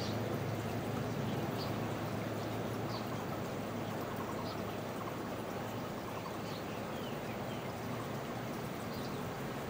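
Water pouring steadily from a wooden spout into a tiled outdoor hot tub, with a few faint, short bird chirps above it.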